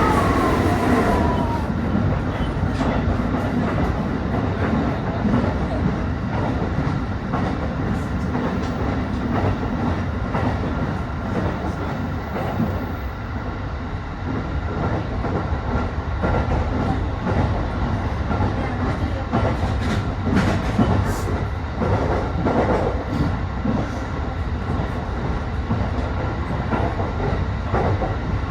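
Ride noise inside an E531 series electric train running along the line: a steady rumble of wheels on rail with scattered clicks from rail joints. A high whine at the start dies away within the first two seconds.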